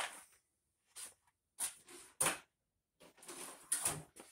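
A handful of short scuffs and knocks with quiet gaps between them, the loudest a little over two seconds in and a cluster near the end: footsteps and handling noise as someone gets up and walks past the bike.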